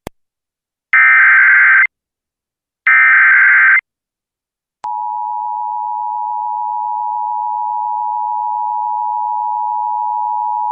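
Emergency Alert System signal: two harsh, buzzing bursts of digital SAME header data of about a second each, then, after a short gap, the steady two-tone EAS attention signal (853 and 960 Hz) held for about seven seconds. Together they announce an incoming alert, here a severe thunderstorm warning.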